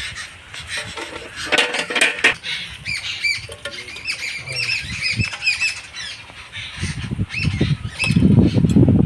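Birds calling with many short, rapid chirps and squawks. About seven seconds in, a louder rough rustling noise comes in under them.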